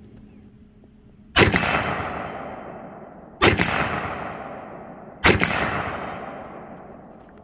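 Three shots from a side-charging AR-15 rifle, about two seconds apart. Each crack is followed by a long echo that dies away over a couple of seconds.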